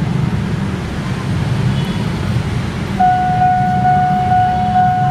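KRL electric commuter train running in along the track with a steady low rumble. About three seconds in, a loud, steady, high-pitched warning tone starts and holds.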